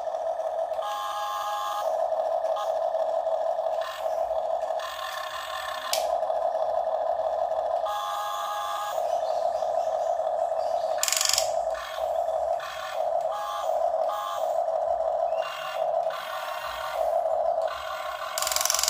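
Electric gear motors of a Huina RC excavator whining as the boom, arm and bucket move, starting and stopping every second or two as each function is worked.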